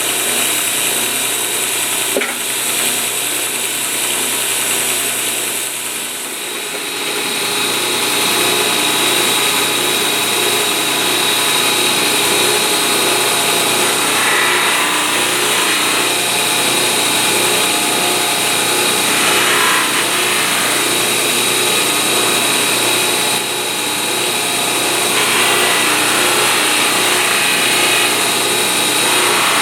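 Electric metalworking power tool motor running steadily with a high whine, working stainless steel. A harsher hiss comes in a few times, the sound of the metal against the tool.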